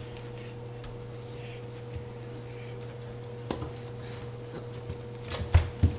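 Steady low electrical hum with scattered light knocks and rubbing, then two louder thumps close together near the end.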